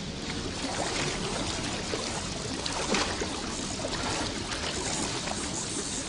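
Fast river water rushing over rocks, with scattered splashes through it.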